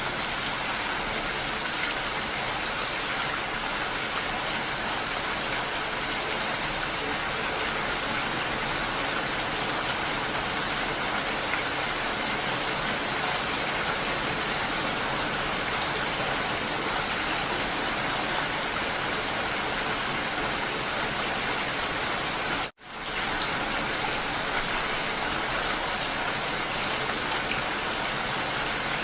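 Steady, dense rain hiss with no distinct drops or other sounds standing out. It cuts out for a split second about three-quarters of the way through, then carries on unchanged.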